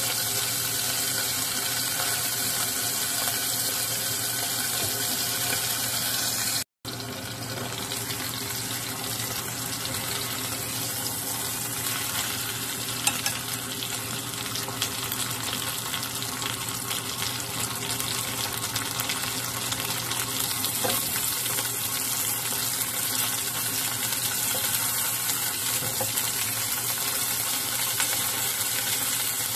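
Chicken thigh sizzling steadily in a nonstick frying pan over a gas flame, steam-frying under a cover after being turned, then frying uncovered. The sound cuts out for an instant about seven seconds in, and a few light clicks come later on.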